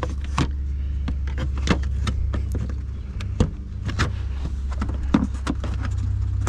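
Flat-blade screwdriver prying plastic push-pin retainers out of a pickup's radiator support cover: a string of irregular sharp plastic clicks and taps, over a steady low hum.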